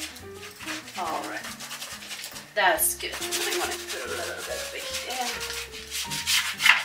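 Paintbrush bristles scrubbing acrylic paint onto a textured canvas in repeated short back-and-forth strokes, over quiet background music.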